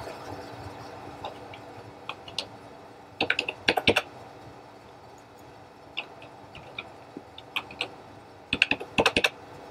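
Computer keyboard keys typed in short runs of quick keystrokes, with pauses between the runs.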